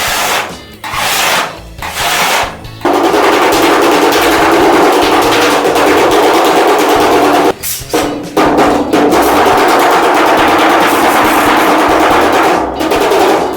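A handheld power tool working on car body metal runs loudly in two long bursts with a short break between them. Before it starts there are a few slower rubbing strokes.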